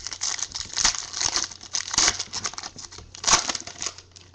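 A foil football-card pack wrapper being torn open and crinkled by hand: a quick run of crackling rips, loudest about one, two and three seconds in.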